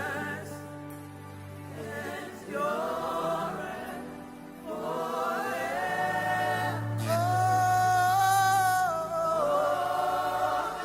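Gospel worship singing: voices hold long notes that step up and down in pitch over a low sustained accompaniment, swelling loudest about two-thirds of the way through.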